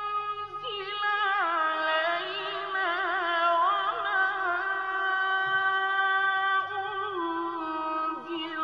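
A male Quran reciter chanting in maqam Hijaz: one long ornamented phrase with wavering, bending pitch, beginning about a second in and settling onto a lower held note near the end.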